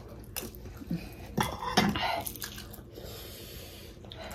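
Close-up eating sounds: a spoon clinks against a ceramic bowl, and momos in jhol broth are slurped and chewed in a few short wet bursts, the loudest near the middle.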